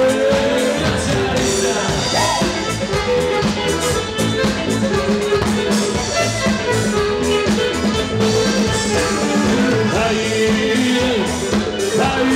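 Live band playing an upbeat dance song, with violin, electric guitar and drum kit and a steady beat, and a singer's voice over it.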